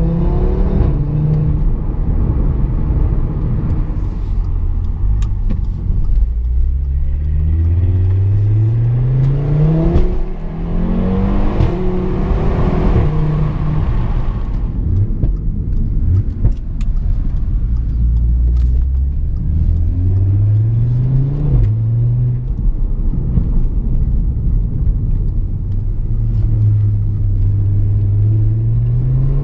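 Audi RS3 R's MTM-tuned 2.5-litre turbocharged five-cylinder engine pulling hard: its pitch climbs several times under acceleration and drops suddenly at the gear changes. A rush of noise swells in about ten seconds in and fades a few seconds later.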